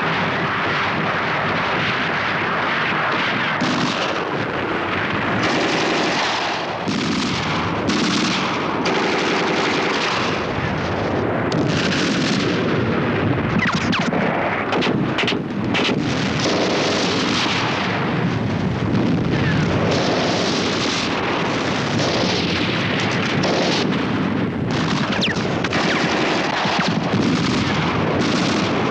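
Sustained battle gunfire: rapid machine-gun fire mixed with heavier gun and artillery shots, one after another with no let-up.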